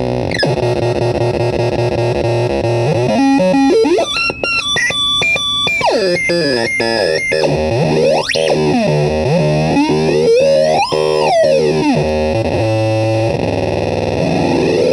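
Homemade crystal radio noise synth putting out buzzing electronic tones and noise. Its pitch jumps in steps, then sweeps up and down in arcs, and rises again near the end as its knobs are turned.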